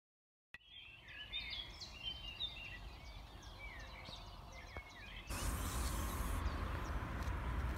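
Small birds chirping and singing, many short quick calls over a faint outdoor background. About five seconds in, this gives way to a louder steady rushing noise with a low rumble, with a few chirps still faint behind it.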